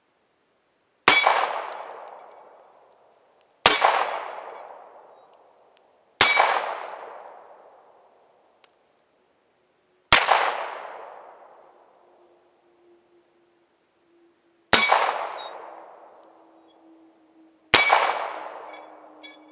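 Six single handgun shots, a few seconds apart, each echoing and fading for about two seconds among the trees.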